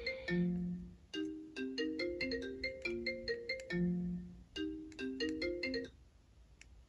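Outro background music: a bright melody of short, quick notes with a longer low note twice, stopping about six seconds in.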